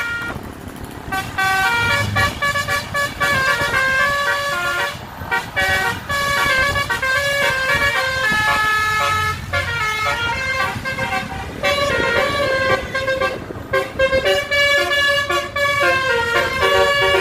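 Bus basuri (telolet) multi-tone air horn playing a fast melody of stepped, held notes, with a few brief breaks, over a low vehicle rumble.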